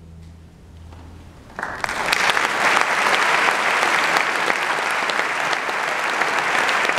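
The last low notes of a string orchestra's final chord fade away, and about a second and a half in an audience starts applauding, steady clapping that continues.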